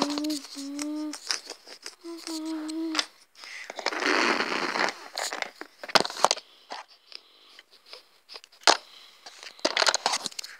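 A person humming two short notes, each held at a steady pitch, then about a second of rustling and a few scattered sharp clicks of handling.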